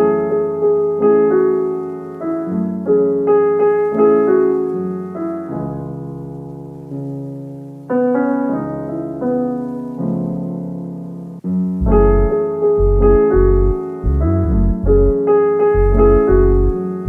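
Background piano music: slow chords whose notes ring out and fade. A deep, pulsing bass line joins about twelve seconds in.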